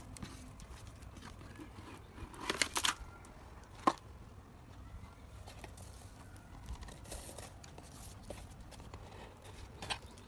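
Paper and cardstock being handled as a handmade gift box is opened: brief rustling and crinkling about two and a half seconds in, a sharp tap just before four seconds, and more soft rustles near the end.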